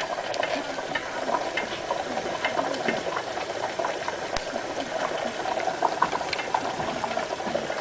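Squash, zucchini, onion, jalapeños and bacon sizzling in a hot skillet: a steady frying hiss with many small pops and crackles.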